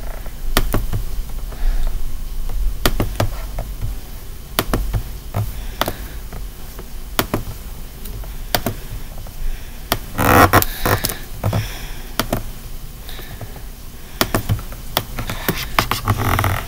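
Scattered light taps and clicks from working a drawing program (picking brushes and painting a stroke), with a denser, louder burst of noise about ten seconds in.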